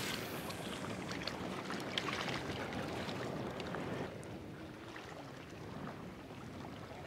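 Soft, steady wash of sea water and wind at the shore, with a few faint clicks.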